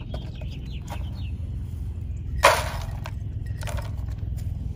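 A short, sharp clatter about two and a half seconds in as plastic feed containers are handled, with a fainter one a second later. A few bird chirps near the start, over a steady low rumble.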